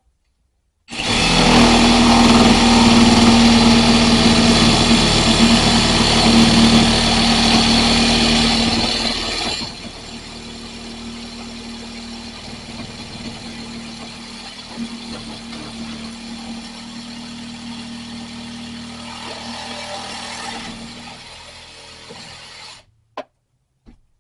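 Kobalt jigsaw running and cutting wood, with a steady motor tone. It is loud for the first eight seconds or so, then runs much quieter until it stops shortly before the end.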